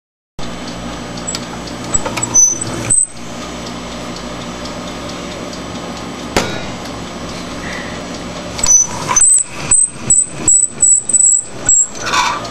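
A vehicle engine running steadily, with high squeals about two seconds in, then a quick run of about ten loud squeaky clunks over the last four seconds.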